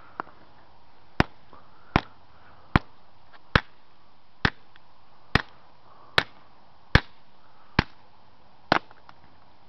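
An old LG flip phone being smashed: about ten sharp, hard blows in a steady rhythm, roughly one every 0.8 seconds, with a smaller knock just before them.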